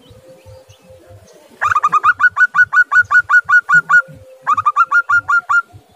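Zebra dove (perkutut) giving a rapid staccato call: two quick runs of short, rising notes at about seven a second. The first run lasts over two seconds, and the second, shorter one starts after a brief pause.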